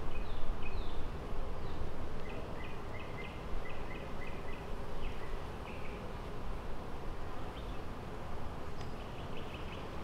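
Honeybees humming steadily around an open hive box. A run of short, high chirps repeats from about two seconds in.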